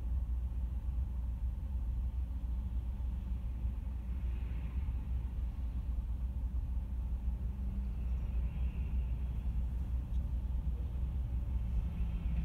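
Car engine idling while stopped in traffic, heard inside the cabin as a steady low rumble. A faint higher tone comes and goes a couple of times.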